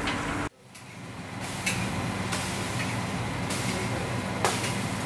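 Steady hum of a small cafeteria kitchen, punctuated by a few sharp clicks and scrapes of a metal spatula on a flat steel dosa griddle as thattu dosas are turned. Before it, half a second of outdoor background noise stops abruptly.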